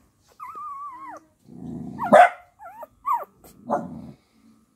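A dog whines in one long wavering note, then gives a loud sharp bark about two seconds in, followed by short yelping whines and a second, softer bark.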